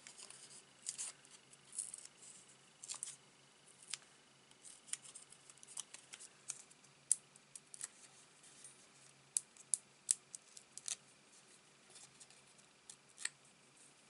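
Faint, irregular small clicks and crinkles of hands handling paper card stock and the plastic backing of adhesive foam dimensionals, peeling and separating the pads.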